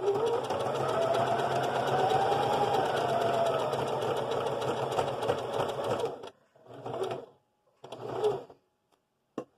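Singer electric sewing machine running a zigzag stitch for about six seconds, its motor pitch rising and then easing off as the speed changes. This is followed by two short bursts of a few stitches each as the fabric is turned.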